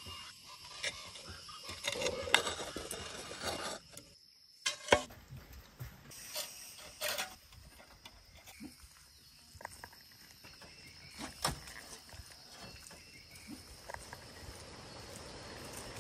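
Reclaimed clay roof tiles knocking and scraping as they are handled and set in place, with a scatter of sharp clicks and taps.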